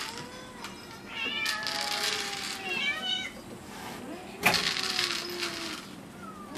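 Cats meowing, several long drawn-out meows that slide in pitch, one after another, with a sharp knock about four and a half seconds in.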